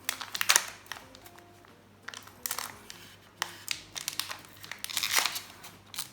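Foil booster-pack wrapper crinkling in several bursts as it is twisted and pulled, the pack resisting being torn open, over soft background music.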